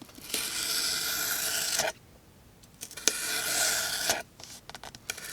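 We Knife Etern folding knife blade slicing through cardboard in two long strokes, the first about a second and a half, the second a little over a second.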